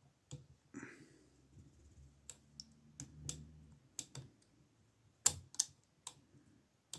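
Metal pick and tension tool clicking against the levers inside a Burg lever lock as it is picked: scattered sharp clicks at an uneven pace, the loudest pair a little past the middle.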